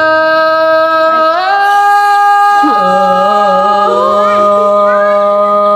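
Thái folk singing: a long drawn-out sung note, held steady, that steps up in pitch about a second and a half in. A second, lower held tone joins it about three seconds in.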